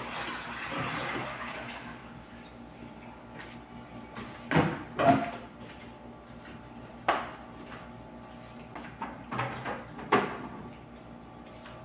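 Water pouring briefly from a water dispenser tap, then about five sharp clunks and clatters of a bowl and kitchenware being picked up and set down.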